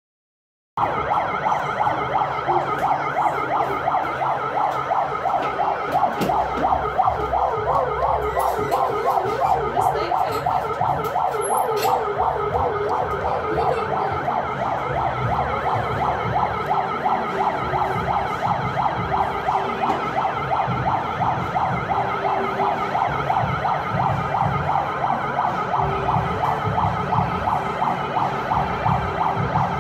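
Electronic siren of a small electric fire-department vehicle, sounding a fast warbling wail that starts abruptly about a second in and carries on steadily.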